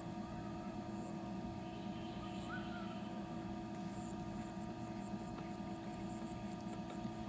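Steady mechanical hum made of several held tones, unchanging throughout, with a short faint chirp about two and a half seconds in.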